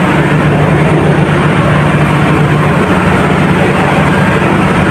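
Ship's engine-room machinery running: a loud, steady drone with a strong low hum.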